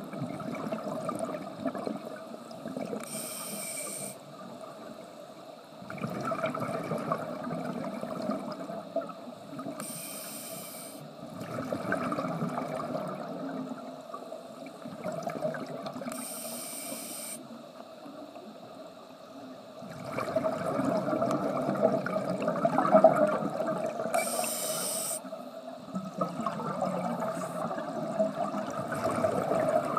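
A scuba diver breathing through a regulator underwater: four short hissing inhalations, about every seven seconds, each followed by a longer rush of exhaled bubbles.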